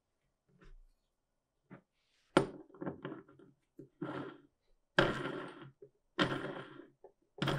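Steel parts of an antique adjustable monkey wrench clinking and rattling as the loose jaw is spun onto the threaded shank. There are a couple of light knocks first, then four short bursts of quick metallic clicking, each starting sharply, the first about two seconds in.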